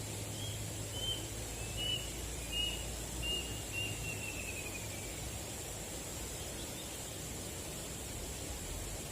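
A bird calls a quick series of about six short chirps, the last one trailing off and falling slightly in pitch, over steady outdoor background noise and a constant high thin tone.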